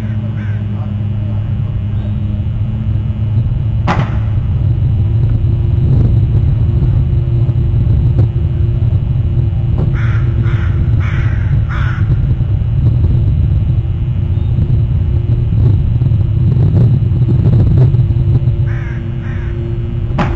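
A crow cawing, four harsh caws about half a second apart, then two more near the end, over a steady low rumble. There is a single sharp click about four seconds in.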